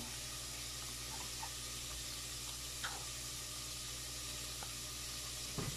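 Steady hiss with a low hum, and a couple of faint clicks from a spoon mixing shredded crab stick and mayonnaise in a bowl, once about three seconds in and once near the end.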